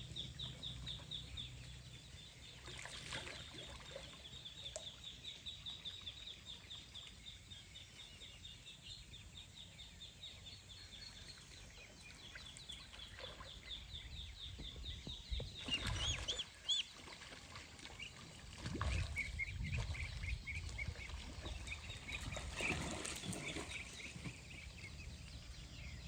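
Farmyard chickens clucking, with a rapid, even high-pitched chirping trill in the background that stops about halfway through.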